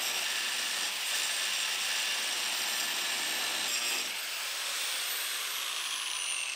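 Angle grinder grinding off seam welds on the steel frame rail: a steady, harsh grinding hiss. In the last couple of seconds its high whine slides down in pitch.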